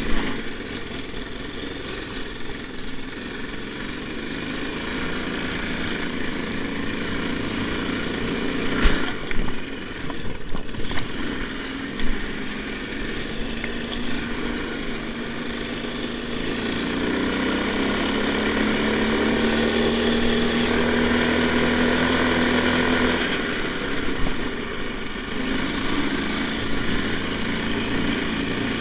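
Single-cylinder four-stroke 9 hp Lifan engine of a Skil snow bike running while riding, heard from on board. Its note climbs steadily under throttle in the second half, then drops off abruptly. A few sharp knocks sound partway through.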